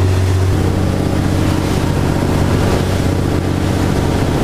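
Outboard-powered sportfishing boat running under way: a steady engine drone with water rushing past the hull and wind on the microphone. The engine tone shifts about half a second in.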